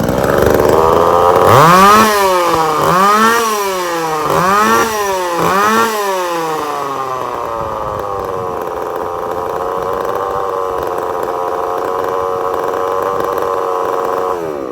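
Echo CS-3450 two-stroke chainsaw engine starting, blipped up to speed four times in quick succession, then running steadily for several seconds before cutting off abruptly near the end. The saw is running on a newly replaced, freshly tuned carburetor, and it sounds pretty good.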